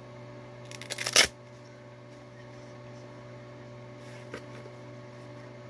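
Hook-and-loop (Velcro) wrist strap of a workout glove ripped open in a short crackling tear about a second in, over a steady low hum.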